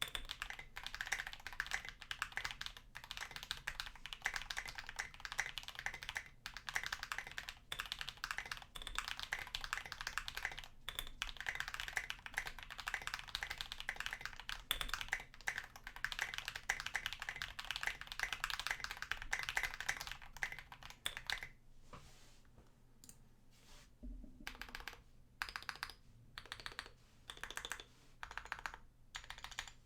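Tofu65 mechanical keyboard with lubed Holy Panda tactile switches, a brass plate and an aluminium case, typed on fast in a steady stream of key clacks. A little past two-thirds through, the typing thins out to single key presses and short runs with pauses between.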